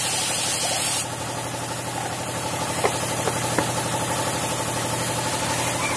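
A motor running with a steady low hum. The high hiss over it drops away about a second in, and there are a few light clicks near the middle.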